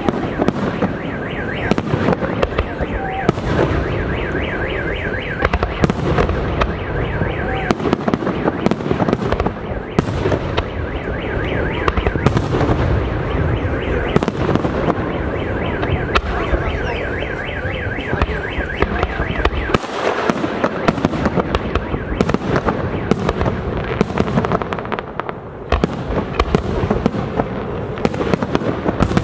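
Aerial firework shells bursting in quick succession: a dense, unbroken run of bangs and crackles.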